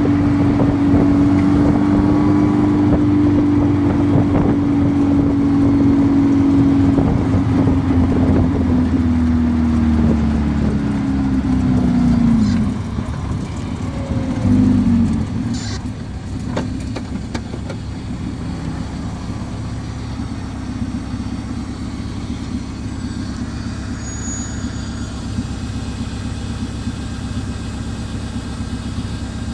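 Turbocharged buggy engine held at high revs, then falling back about twelve seconds in. It revs up briefly once more about fifteen seconds in, then settles to a steady, lower idle.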